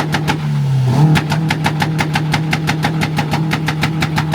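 Car engine held on a two-step launch limiter: the revs hang at one pitch while the exhaust cracks and pops rapidly, about seven bangs a second. The revs dip briefly within the first second, then climb back onto the limiter.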